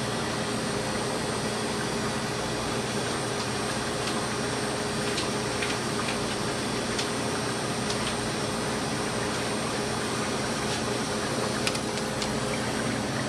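Steady hum and hiss of running machinery, with a few faint light clicks.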